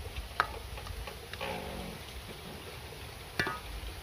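A coconut-shell ladle stirring in a metal wok, knocking against the pan with two sharp ringing clacks, the louder about half a second in and another near the end. A brief pitched sound comes in the middle.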